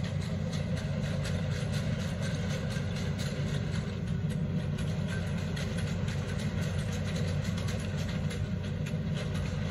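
Hitachi ZX210 amphibious excavator's diesel engine running steadily, a low even drone as the machine travels along the river on its pontoons.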